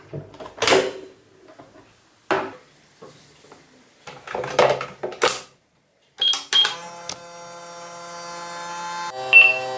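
A microwave oven: several clicks and knocks, then two short high beeps, then a steady electric hum that grows louder for about three seconds, with another beep near the end.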